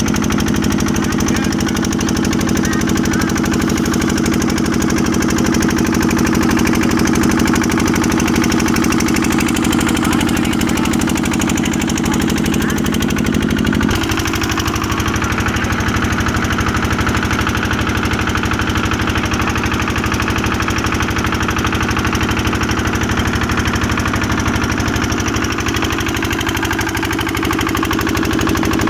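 Motorboat engine running steadily, with an abrupt shift in its note about halfway through.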